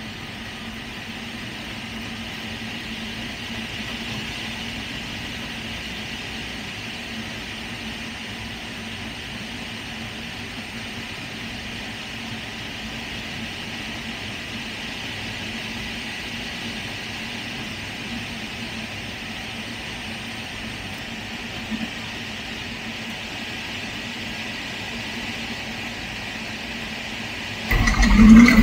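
Steady rush of airflow over the cockpit canopy of a 1976 Scheibe SF-25C Falke motor glider gliding with its engine off and propeller stopped. Near the end the engine starts suddenly and runs loudly.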